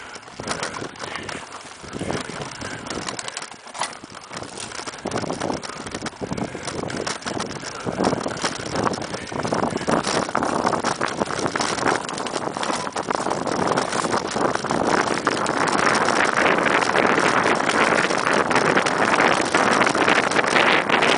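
Mountain bike rattling and knocking over a rough dirt trail, tyres running on the ground, with wind rushing over the camera microphone that grows louder and steadier over the second half.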